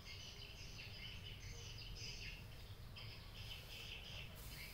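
Faint high-pitched chirping of birds in the background, coming in short irregular bursts over a low steady hum.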